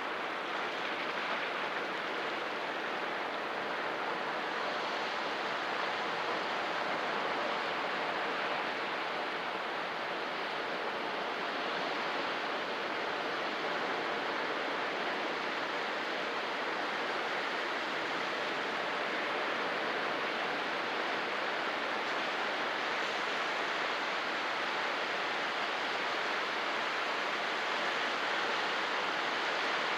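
Sea surf: a steady wash of waves with slow, slight swells in level and no single crash standing out.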